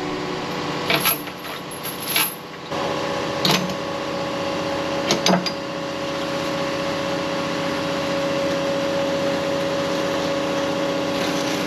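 Excavator running steadily with a constant mechanical hum while it drags a chain of tires out of a culvert pipe, with a few sharp clanks in the first five seconds.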